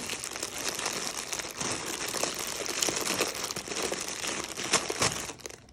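A bag of packaging crinkling and rustling steadily as it is handled and opened to take out the items, stopping near the end.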